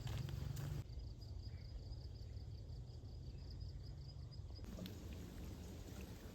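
An insect trills in a steady, rapidly pulsed high note that starts about a second in and cuts off suddenly after about three and a half seconds, over a constant low rumble.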